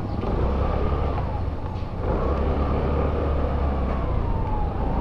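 SYM Tuscani 150cc scooter running at steady riding speed, heavy wind rumble on the microphone over the engine, with a faint whine that wavers and falls away near the end.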